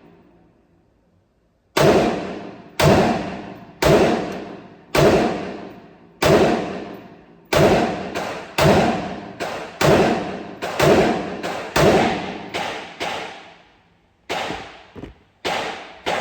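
Gunshots from a Micro Draco fired one at a time in semi-automatic, a string of about fifteen shots at roughly one a second, starting after a short pause; each shot rings out in a long decay.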